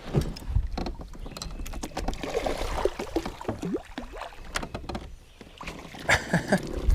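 Clicks and knocks of fishing gear against a kayak hull, with a few short squeaks, as a hooked catfish is fought on the line.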